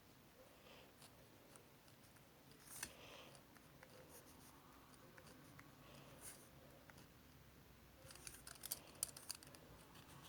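Faint clicks and light scraping from small objects being handled at close range, with one sharper click about three seconds in and a quick run of clicks near the end.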